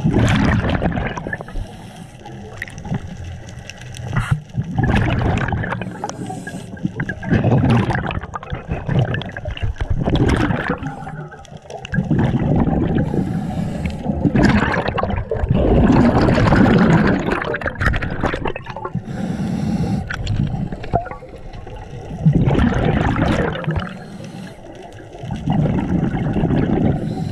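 Scuba diver's exhaled bubbles gurgling and rushing past the regulator underwater, in irregular surges every few seconds.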